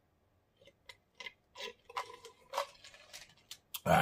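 Drinking from a plastic cup: faint scattered gulps and wet mouth clicks, then a loud open-mouthed 'ahh' near the end.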